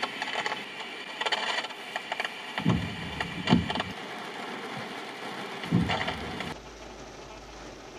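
Rain on a car's windscreen and body, heard from inside the car, with a few irregular sharp knocks. It turns quieter and duller for the last second and a half.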